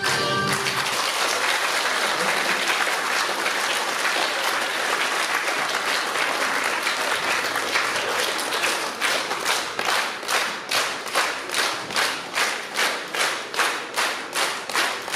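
Audience applauding as the dance music cuts off. About nine seconds in, the applause turns into rhythmic clapping in unison, a little over two claps a second.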